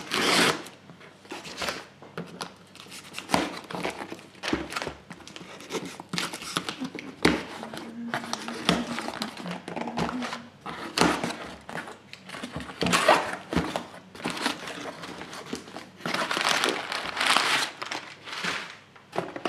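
Scissors cutting the packing tape of a cardboard box, then cardboard flaps and paper scraping, crinkling and tearing as the box is pulled open, in a string of irregular rustles and scrapes.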